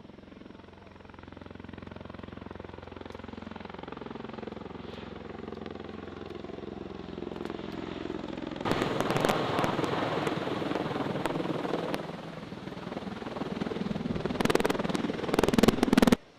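MV-22 Osprey tiltrotor running, its engine and rotor tones shifting slowly and growing louder. About nine seconds in, a loud rushing noise breaks in; it eases briefly and then returns stronger with gusty crackling before cutting off suddenly near the end.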